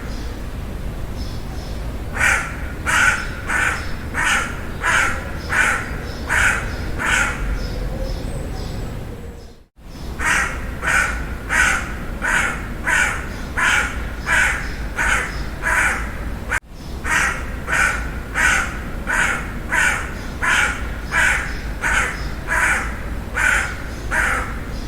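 Crow cawing in long runs of harsh caws, about two a second. The sound cuts out for a moment about ten seconds in, then the cawing resumes.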